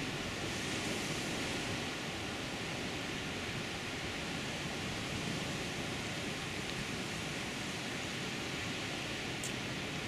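Sea surf breaking on rocks offshore, a steady, even wash of noise.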